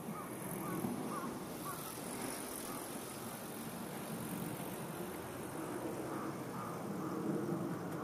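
Outdoor street ambience: a steady low hum with faint, evenly spaced high pings, about two a second.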